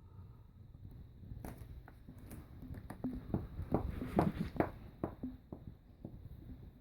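A sleeping pet snoring, a low rumble with a run of irregular soft clicks through the middle.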